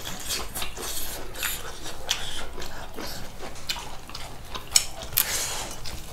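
Mukbang eating sounds: chewing and mouth noises with clinks of dishes and utensils, a string of short crisp sounds, the loudest two a little before and after five seconds in.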